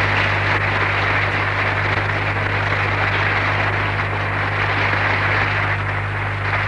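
Audience applauding in a hall, a steady dense clapping, over a constant mains hum in the old recording.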